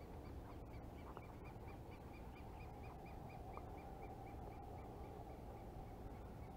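A bird calling a fast series of short, identical notes, about four a second, that fade out about two-thirds of the way through, over a faint steady low rumble.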